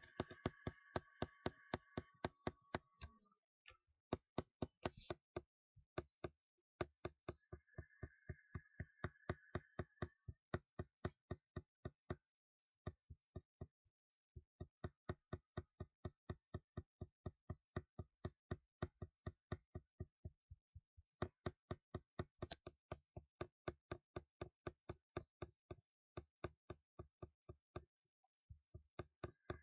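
Rhythmic tapping, about three to four evenly spaced taps a second, in runs broken by short pauses. A faint steady whine sounds under the taps near the start and again about a third of the way in.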